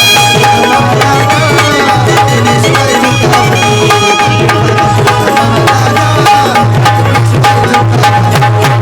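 Instrumental break in a live Marathi devotional folk song (Bhimgeet): hand drums play a fast, even beat under a held melody line.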